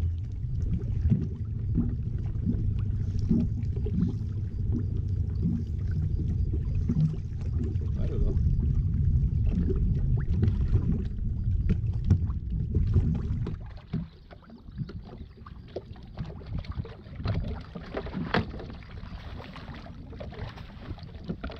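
Low steady rumble of water and wind around a small fishing boat, which drops away about two-thirds of the way through. Scattered light clicks and taps follow while a fish is reeled in and netted.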